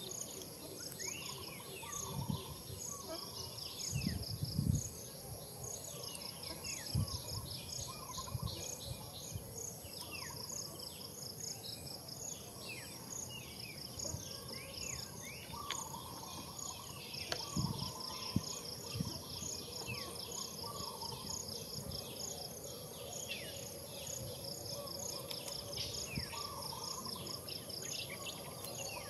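Outdoor ambience of insects trilling steadily, with rapid pulsing chirps and many short falling bird chirps over it. There are a few low thumps, the loudest about four seconds in and again past the middle.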